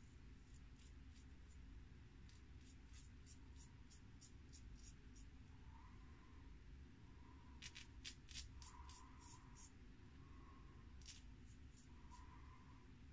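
Faint short scraping strokes of a George Wostenholm 5/8 straight razor cutting stubble during a clean-up pass. The strokes come in quick runs of several at about three a second, with pauses between the runs.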